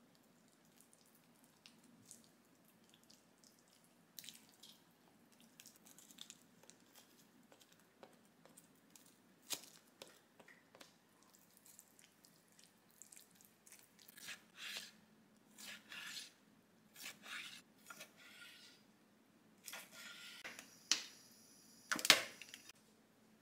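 Silicone spatula stirring thin, wet pancake batter in a glass mixing bowl: repeated soft squelching and scraping strokes. Near the end come a few sharper, louder clacks.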